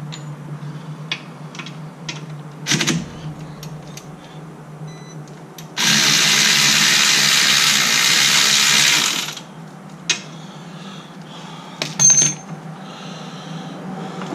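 A compressed-air tool in the shop lets out one steady, loud hiss of about three and a half seconds. A few sharp metal knocks and clinks from work on the rear hub come before and after it, over a steady low hum.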